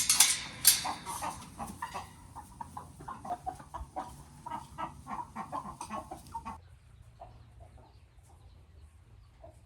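Chickens clucking, many short calls in quick succession, thinning out to a few scattered clucks after about six and a half seconds. Two loud sharp noises come at the very start.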